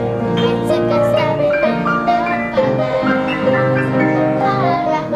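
Piano playing a melody over a low bass line, one note after another.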